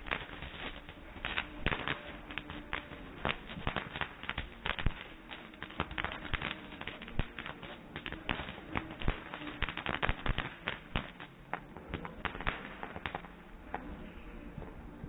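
Ground fireworks fountains crackling with rapid, irregular pops, thinning out near the end.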